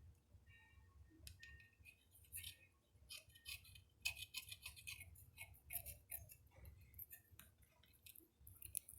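Faint, irregular clicks and crackles of a pet gnawing and knocking about a chewed wooden stick, busiest about halfway through.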